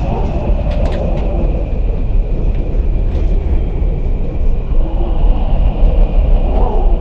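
Added sound-effect track: a loud, steady low rumble with a faint steady high tone above it, and a few short cracks about a second in.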